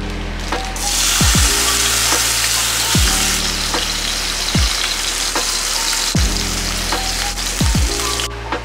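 Hot oil sizzling and frying in a pan, starting about a second in and cutting off suddenly near the end. Background music with a deep, falling bass beat plays throughout.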